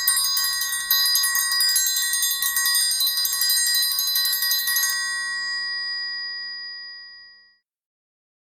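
Triangle bell struck in a fast continuous roll, its high overtones ringing together; about five seconds in the striking stops and the triangle rings on, fading out.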